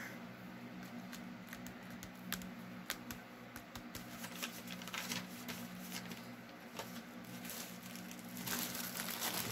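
Faint rustling and light taps of paper being handled and pressed down by hand on a journal page, a little louder near the end, over a steady low hum.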